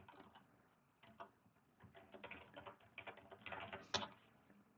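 Faint typing on a computer keyboard: quick, scattered key clicks, sparse at first and then in a run, with a louder click about four seconds in as the login is submitted.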